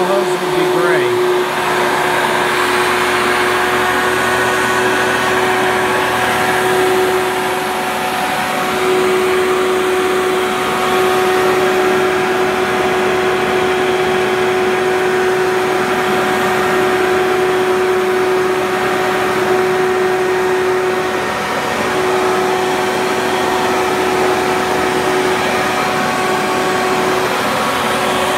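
Hoover Elite II upright vacuum cleaner running steadily, its motor giving a constant whine over the rush of air.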